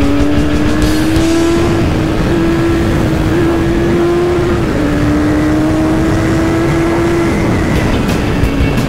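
Kawasaki Z1000SX inline-four motorcycle engine running at highway speed under wind rush, its note creeping up and dipping back a few times with the throttle.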